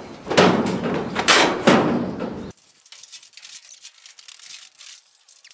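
Steel storage-shed parts knocking and rattling as they are handled and fitted, with several sharp knocks over the first two and a half seconds. Then the sound drops abruptly to a faint hiss with a few small ticks.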